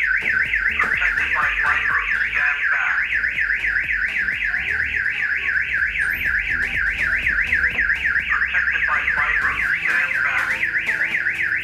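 Aftermarket car alarm siren sounding in a fast, even warble between two high pitches, about five sweeps a second. It has been triggered by a door being opened while the car is locked, without the key.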